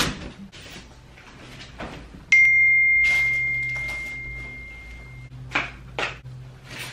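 A single clear, bell-like ding about two seconds in: one high ringing tone that fades away over about three seconds. Around it are a few short knocks and rustles of movement.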